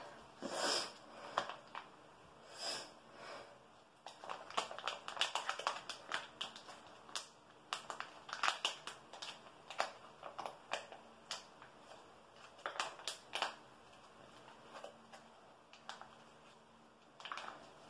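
Plastic hair-mask sachet crinkling and crackling in the fingers as it is worked at to tear it open, in many irregular sharp crackles.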